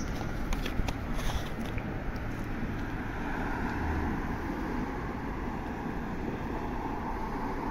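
Steady low rumble and hiss of vehicle noise, with a few light clicks in the first couple of seconds.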